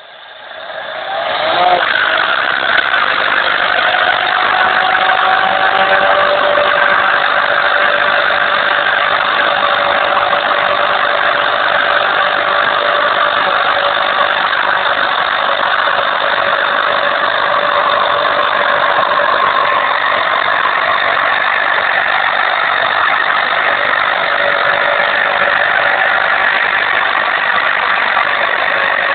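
Pontiac Sunfire's 2.2-litre four-cylinder engine held at high revs in a burnout, the front tyres spinning and squealing on the pavement. The sound builds up over the first second or two, then holds steady and loud throughout.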